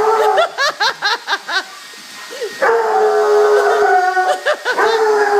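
Excited dog yipping and whining in quick, arching high calls, then, about two and a half seconds in, one long howl of about two seconds, followed by more yips.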